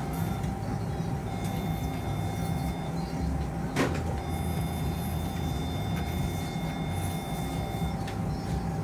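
Electrosurgical (cautery) unit's activation tone sounding in two stretches, about a second and a half early and about four seconds from the middle to near the end, as the surgeon cuts out the implant capsule. Underneath is a steady low hum of operating-room equipment, with a single sharp click near the middle.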